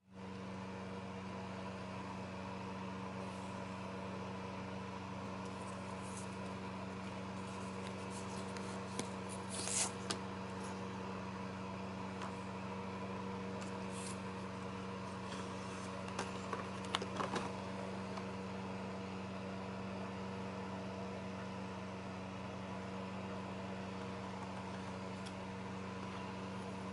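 A steady low machine hum with a few higher overtones, with brief rustles and taps of cardboard packaging being handled: a burst about ten seconds in and a quick cluster around sixteen to seventeen seconds.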